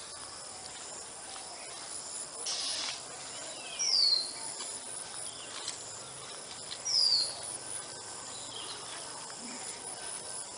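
A small bird, likely the anxious parent at the nest, gives short sharp calls that sweep downward in pitch. The two loudest come about four and seven seconds in, with fainter ones between. Steady insect or cricket trilling runs underneath, and there is a brief hiss a little before the first loud call.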